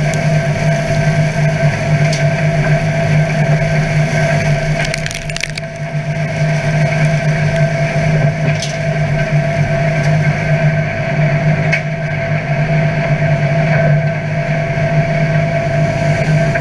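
McHale C460 straw chopper running on a Deutz-Fahr DX 4.70's air-cooled four-cylinder turbo engine, its rotor shredding a straw bale and blowing out the chopped straw. Steady machine hum with a few sharp cracks, a short cluster of them about five seconds in.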